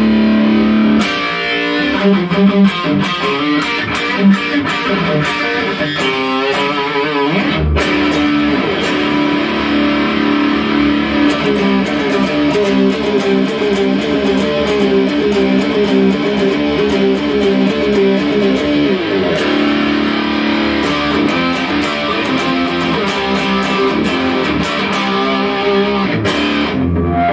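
Electric guitar played through a Peavey Envoy 110 solid-state combo amp on its high-gain setting. The playing is heavy riffing with runs of rapidly repeated chugging notes.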